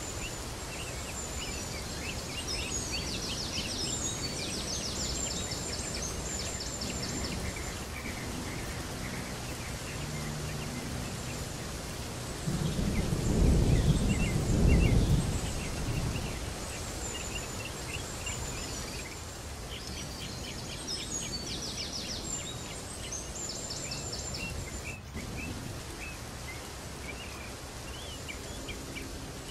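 Birds chirping in short high trills over a steady rushing noise, with a louder low rumble for about three seconds around the middle.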